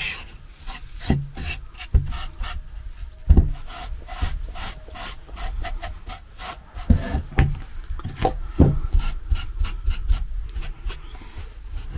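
Fine wire wool loaded with wax rubbed over a carved wooden bracket in quick, irregular scratchy strokes, knocking back gilt colour and smoothing the wood. A few dull knocks come in between the strokes.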